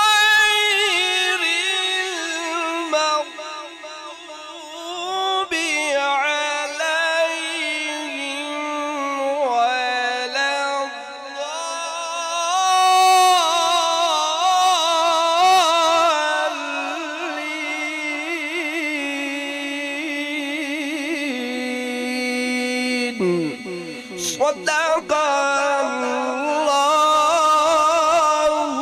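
A male qari reciting the Quran in the melodic tajweed style through a microphone: long held notes with wavering ornaments, sung in phrases with short breaths between them.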